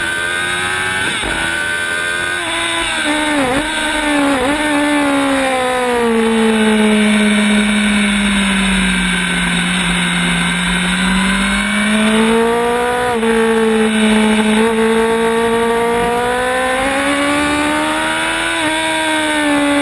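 Sport motorcycle's engine heard from onboard at track speed, with wind rush. The revs drop sharply twice a few seconds in as the rider shifts down, stay low through the middle, then climb again through upshifts and ease off near the end.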